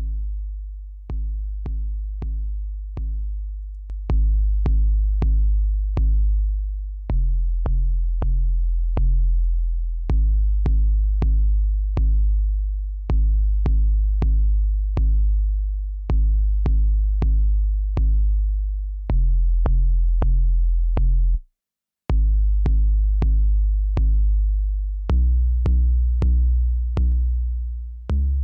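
A looping 808 sub-bass line from a DAW: deep, booming bass notes, each with a short click at its start, in a steady repeating rhythm. From about four seconds in the notes come in louder and their tails hold longer, the effect of an 1176-style FET compressor plugin being switched in on the bass. There is a short dropout around two-thirds of the way through, and near the end the notes step up in pitch.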